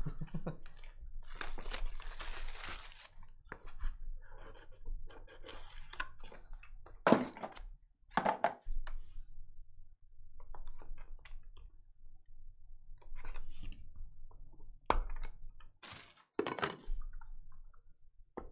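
A plastic-wrapped trading card pack torn open and crinkled about a second in, then cards shuffled and handled. A few sharp clicks and knocks follow as cards go into hard plastic holders set on a table.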